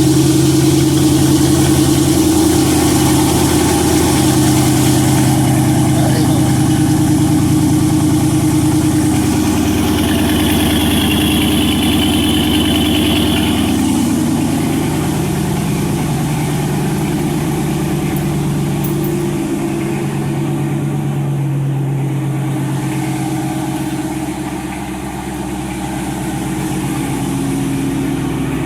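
Dodge Charger R/T's 5.7-litre Hemi V8 idling just after a cold start, with the exhaust echoing in a garage. The fast cold idle steps down in pitch around ten and again around fourteen seconds in, and the sound grows slightly quieter as it settles.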